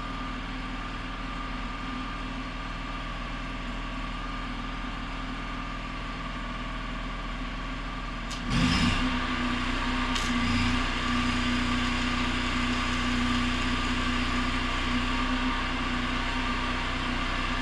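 Arc welder humming steadily; about eight and a half seconds in the hum suddenly gets louder with a hiss as the stick-welding arc is struck and held.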